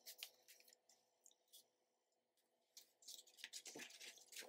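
Near silence with faint rustles and light taps of a paper-and-chipboard journal being handled and slid across a cutting mat, most of them in the last second and a half.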